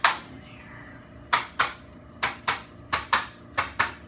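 Chiropractic adjustment taps: one loud sharp crack with a short ring, then a steady run of paired sharp clicks, about one pair every two-thirds of a second.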